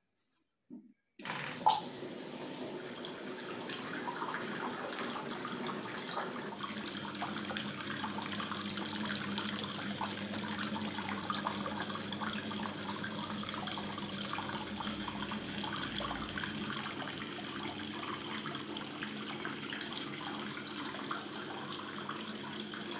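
Homemade tabletop water fountain switched on with a click, then water trickling and splashing steadily down through its clay pots into the basin, over a faint steady hum from the small electric pump.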